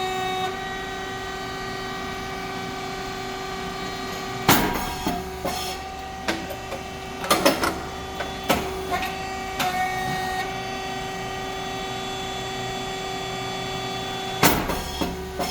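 Rice cake popping machine (SYP9002) running its cycle: its motor and hydraulic pump give a steady hum. About four seconds in and again near the end, ten seconds apart, there is a loud sudden pop as the heated moulds open and release a batch of puffed rice cakes. Shorter mechanical knocks and clacks come between the pops.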